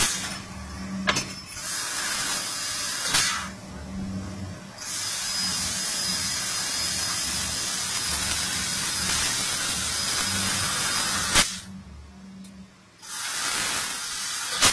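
Fiber laser tube cutter cutting thin stainless steel pipe: the assist gas from the cutting head hisses in spells, for about a second and a half, then about six seconds, then again near the end, dropping away between cuts. Sharp clicks come as the hiss starts and stops, with a low machine hum underneath.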